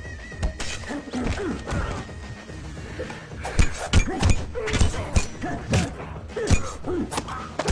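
Film fight sound effects: a fast run of punch and baton-strike whacks, thickest from about halfway, with shouts of effort, over a dramatic music score.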